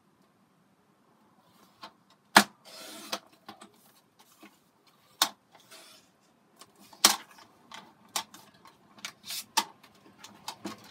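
Sliding-blade paper trimmer cutting card: sharp plastic clicks and knocks from the cutting head, with a short hiss of the blade running through the paper about two and a half seconds in. A quick run of lighter clicks and rattles follows near the end.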